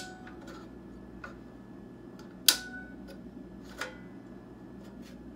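Drive trays of a metal three-bay 3.5-inch hot-swap cage clicking as they latch into place: a few sharp clicks, the loudest about two and a half seconds in with a short metallic ring, another near four seconds, and fainter ticks between.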